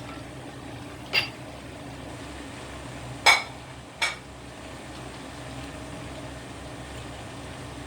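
Three sharp clinks of kitchen utensils against cookware while beaten egg goes into the wok of stir-fried vegetables. The middle clink is the loudest, and a steady low hum runs underneath.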